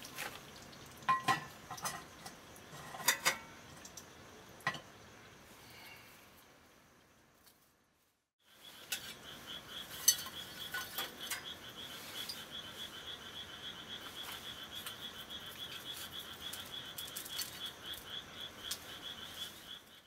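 Cast iron cookware clinking a few times, then glowing charcoal embers dropped onto an upturned cast iron skillet used as a lid, clattering with sharp clicks, the loudest about ten seconds in, to bake the top of the dish. A high, evenly pulsing trill runs underneath through the second half.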